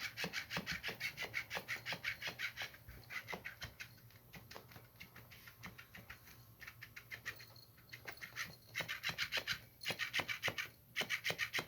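Motorized flopping-fish cat toy flapping, a rhythmic rasping scrape about five strokes a second, like someone sawing wood. It grows faint in the middle and picks up again later.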